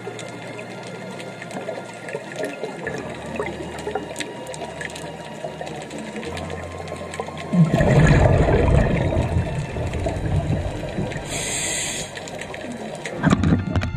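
Underwater sound of a scuba diver breathing through a regulator: a long rush of exhaled bubbles starts about eight seconds in and fades over some four seconds. A brief hiss of inhaling comes near twelve seconds, and a shorter burst of bubbles just before the end, all over a steady faint crackle.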